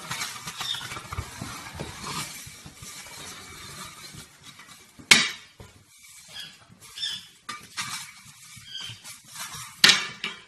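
A raccoon handling a push broom on a wooden floor: irregular scuffing and scraping with light pattering, and two sharp knocks, one about five seconds in and the louder one near the end.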